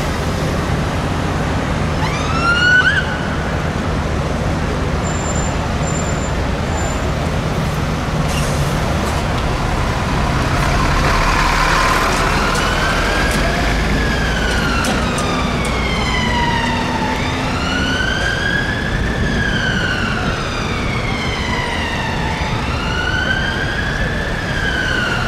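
Whelen Alpha siren on a 2007 Mercedes-Benz Atego fire truck sounding its wail tone over city traffic noise. The wail begins about ten seconds in, rising and falling slowly about every five to six seconds. A brief rising whoop comes about two seconds in.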